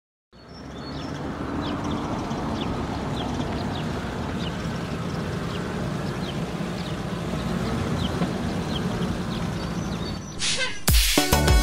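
Cartoon dump-truck engines running steadily, with short high chirps scattered over them. About ten seconds in, a brief whoosh, then upbeat music with a beat starts.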